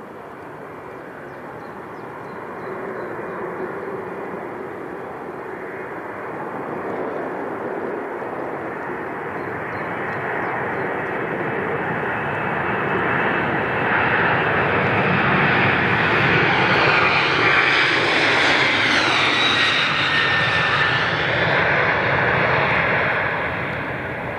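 Heavy jet airliner's engines growing steadily louder as it flies past, peaking about three-quarters of the way through with a falling whine as it passes, then starting to fade.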